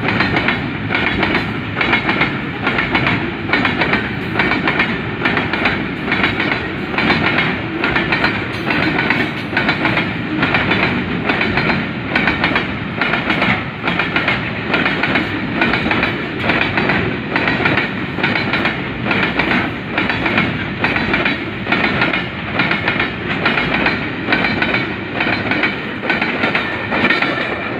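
Goods train of container flat wagons rolling past at close range: steady wheel-on-rail noise with a regular clickety-clack as the wheels cross the rail joints.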